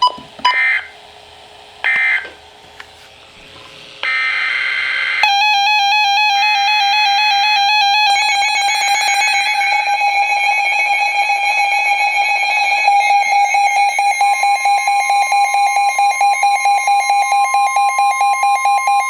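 Emergency Alert System end-of-message data bursts, short harsh digital squawks about a second apart, followed about five seconds in by a loud electronic alarm tone that pulses rapidly and steps between pitches, with a higher steady tone joining near the end.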